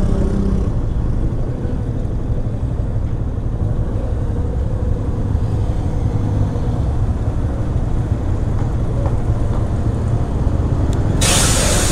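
Yamaha FZ motorcycle riding through road traffic, with a steady low rumble of engine and road noise. About eleven seconds in, a sudden loud hiss starts and carries on.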